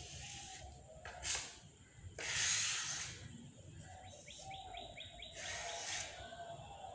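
Sandpaper rubbing over dried wall putty in a few short strokes, the loudest about two seconds in. A bird chirps in a quick run for about a second in the middle.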